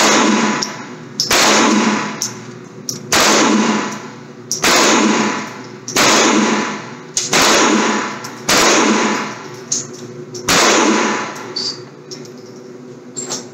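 .22 rimfire gun fired eight times at a steady pace, about one shot every one and a half seconds. Each report trails off in a ringing echo, and the shots stop a few seconds before the end.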